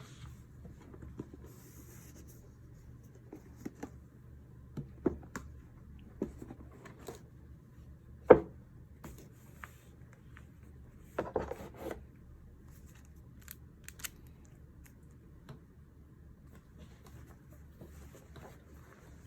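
Unboxing handling noises: scattered light taps and rustles of packaging and the pouch being handled, with one sharp click about eight seconds in and a short burst of rustling a few seconds later.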